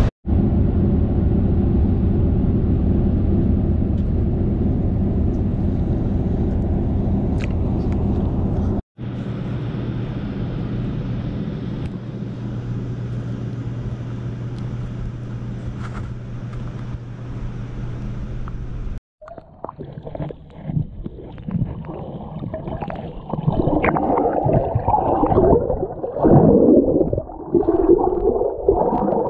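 Steady low rumbling noise for most of the first two-thirds. It then gives way to underwater bubbling and churning, heard through a submerged camera as swimmers kick in the water, with louder surges near the end.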